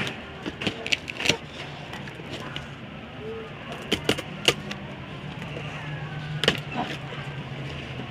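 Packing tape being peeled off a cardboard box and the cardboard flaps pulled open: a run of sharp crackles and snaps of tape and cardboard, over a steady low hum.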